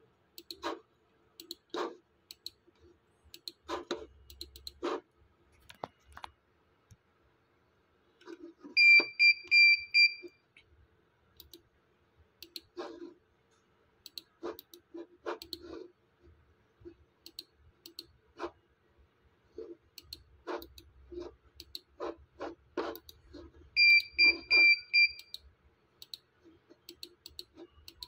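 Computer mouse clicking irregularly, with two loud runs of rapid high electronic beeps, about five beeps in a second and a half each, around nine seconds in and again near the end.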